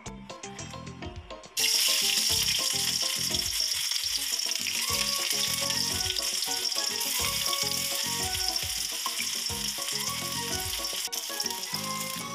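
Hot oil sizzling steadily in a steel wok as sliced aromatics fry, starting suddenly about a second and a half in, over background music.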